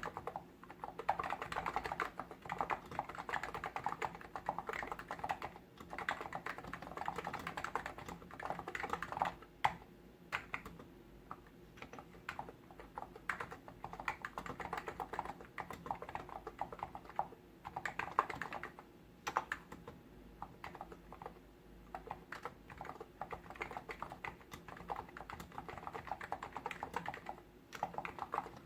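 Hansung GTune CHL8 tenkeyless electrostatic capacitive keyboard being typed on: fast, continuous runs of muted keystrokes broken by brief pauses, with a few louder single strikes.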